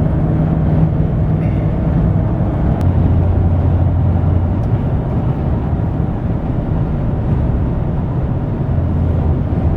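Chevrolet Silverado 1500 engine and road noise heard from inside the cab while driving, a steady rumble whose low hum shifts in pitch as engine speed changes. The engine runs with its loose cylinder 6 plug wire reattached, no longer misfiring.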